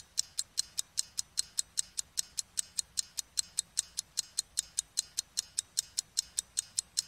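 Clock-ticking sound effect under a countdown: sharp, evenly spaced high ticks, about five a second.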